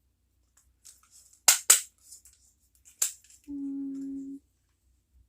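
Desk stapler driving staples through a plastic bag and paper: a sharp double click, then a single click about a second and a half later. After it, one steady hummed note lasting about a second.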